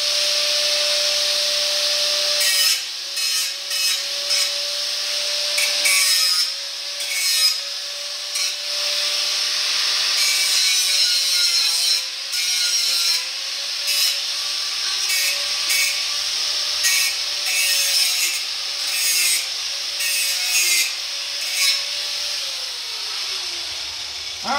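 Electric angle grinder running at a steady whine while its disc grinds the cut end of a steel truck frame rail, smoothing off the sharp flashing left by the cut. The grinding noise swells and fades each time the disc bears on the metal. Near the end the grinder is switched off and its whine falls away as the motor winds down.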